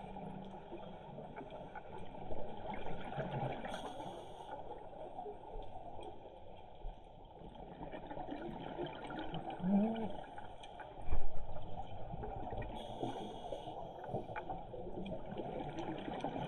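Underwater water sounds: a low gurgling and bubbling, with a short low thump about eleven seconds in.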